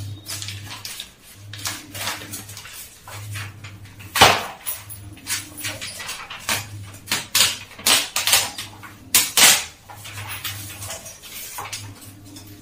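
Magazine pages handled and torn on a kitchen counter: papery rustles and sharp strokes, with a louder knock about four seconds in, over a low hum that comes and goes.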